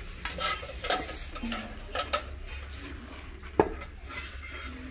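Steel cookware and a metal spoon clinking and scraping as a steel pot of pulao is uncovered after steaming on dum: a few scattered light clinks, with one sharp clank about three and a half seconds in.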